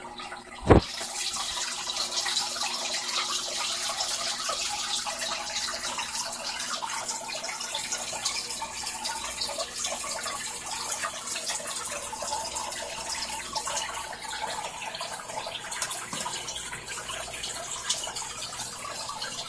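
Aquarium water trickling and splashing steadily, with a sharp click just under a second in.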